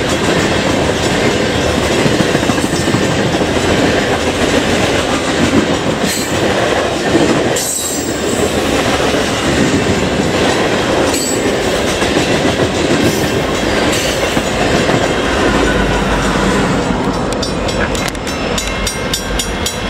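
A loaded coal train of steel hopper cars rolling past close by, with a steady wheel rumble and clatter. Near the end a grade-crossing bell takes over, ringing in quick, even strokes.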